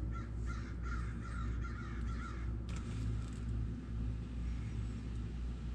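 A bird cawing in a quick run of short harsh calls, about three a second, which stop after two and a half seconds. Then comes one sharp click, over a steady low hum.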